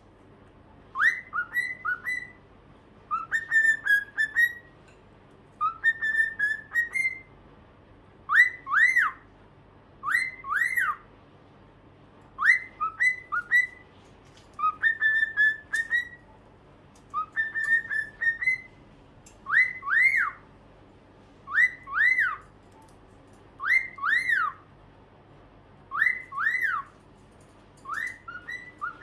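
Cockatiel whistling the same short phrase over and over: a burst of quick rising-and-falling notes about every two seconds.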